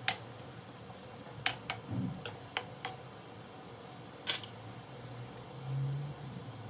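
A stirring utensil knocking and clicking against the wok of simmering soup, a scatter of short sharp ticks, the first at the very start and a cluster in the middle, over a low steady hum.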